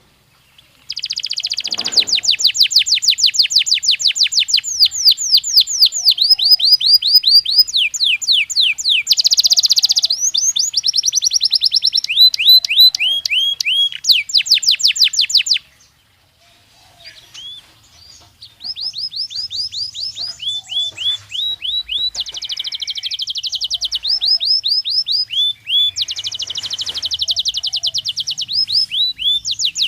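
Belgian canary singing: long phrases of fast repeated notes and trills, each phrase a run of sweeping whistles at a different speed and pitch. The song starts about a second in, breaks off for about three seconds midway, then resumes.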